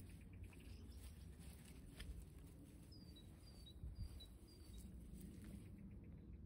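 Faint outdoor quiet with a small bird calling a quick series of about five short, high, falling chirps a few seconds in.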